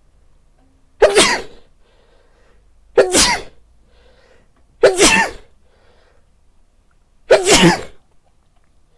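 A man sneezing four times in a fit, loud sneezes about two seconds apart.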